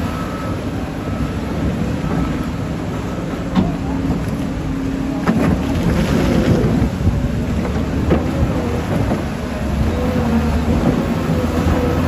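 Skip loader's diesel engine working, with a deep, loud rumble that rises and falls under load and a few sharp metallic knocks as it clears mud and debris. A repeated beep sounds at the start and again near the end.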